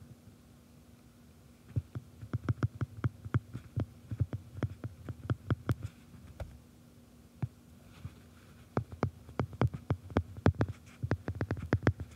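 Quick, irregular clicks and light thuds of a stylus tip tapping on an iPad's glass screen while numbers are handwritten, in two runs with a pause of about two seconds in the middle, over a faint steady hum.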